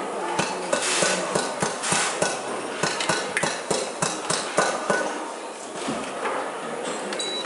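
An irregular run of sharp taps or knocks, about three a second, thinning out about five seconds in.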